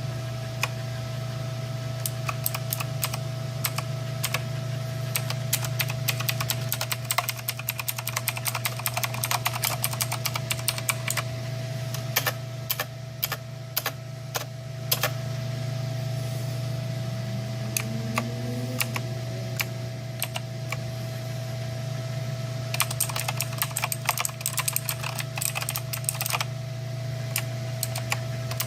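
Typing on an Eastertimes clicky mechanical keyboard: rapid runs of sharp key clicks in bursts with short pauses between, over a steady low hum.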